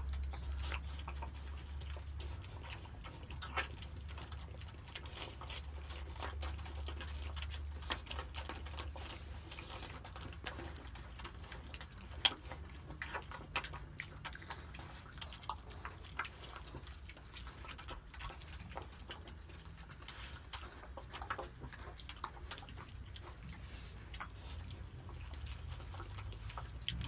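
Pigs eating ice cream: irregular smacking and chewing clicks. A steady low hum runs underneath, stronger for the first eight seconds or so.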